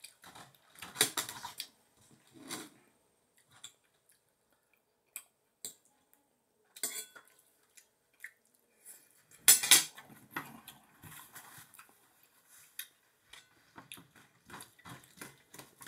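Spoon and dishes clinking and clattering now and then during a meal, in short separate knocks. The loudest clatter comes about nine and a half seconds in.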